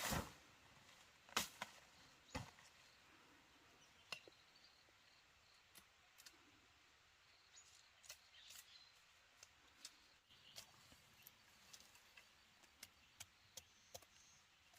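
Quiet handwork: scattered light knocks and clicks, with three louder knocks in the first couple of seconds and fainter ticks after that.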